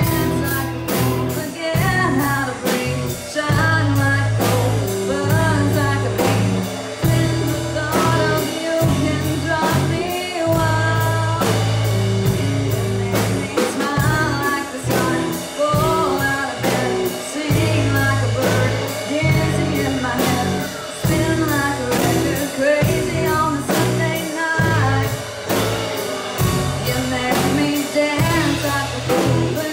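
Student rock band playing live: drum kit keeping a steady beat, bass notes and guitar, with a sung melody over them.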